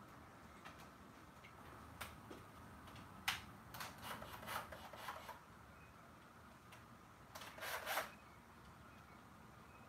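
Small hardware handled by hand: a few faint clicks, then short rattling, rubbing bursts about four seconds in and again near eight seconds, as a small driver bit and screws are fished out and handled.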